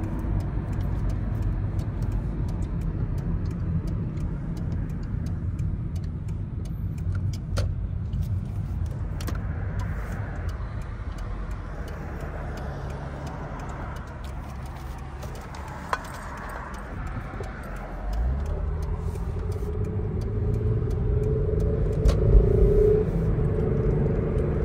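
Toyota car's engine and road noise heard from inside the cabin: it runs steadily, fades quieter for a stretch, then about eighteen seconds in the engine note climbs as the car accelerates away.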